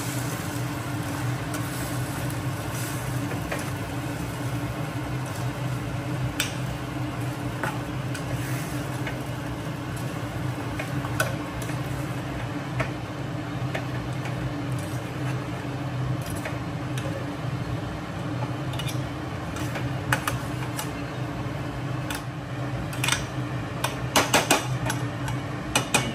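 Kitchen utensils and a cooking pot clinking now and then over a steady low hum, with a quick run of clicks near the end.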